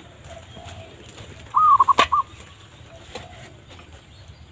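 Zebra dove (perkutut) lure whistle sounded once, about one and a half seconds in: a held note breaking into a quick warble of four pulses, imitating the dove's call to draw wild birds in. A sharp click comes just after.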